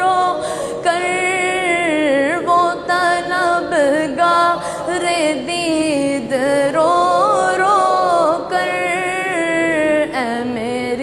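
Unaccompanied solo voice singing an Urdu salam to the Prophet, drawing out long notes that waver and glide up and down between phrases.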